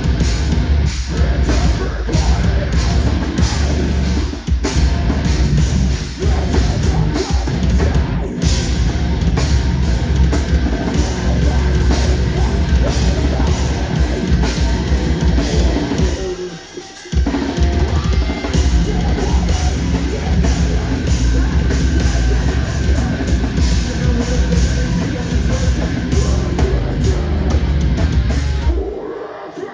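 A loud live heavy band playing hard with a pounding drum kit. The band stops for a moment about seventeen seconds in, then crashes back in, and thins out near the end.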